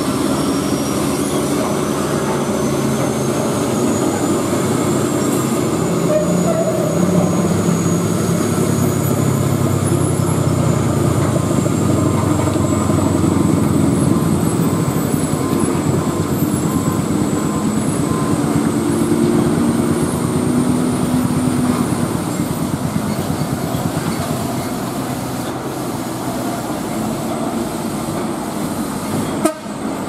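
Hino tractor-trailer's diesel engine running heavily on a steep downhill hairpin, with a thin high whistle over it that slowly rises in pitch. This is the truck's strange-sounding noise on the descent.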